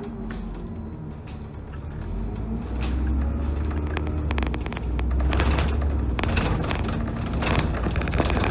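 Dennis Trident double-decker bus heard from on board: its diesel engine rumbles low, growing louder from about two and a half seconds in, and from about five seconds in rattles and knocks from the bodywork come over it.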